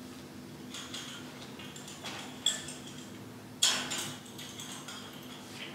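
A few small clicks and metallic clinks, the two loudest about two and a half and three and a half seconds in, each with a brief high ring, over a faint steady room hum.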